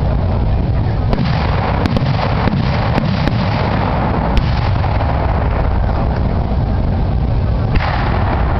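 Multi-break aerial firework shells going off: several sharp bangs and pops in the first half, and one more near the end, over a steady low rumble.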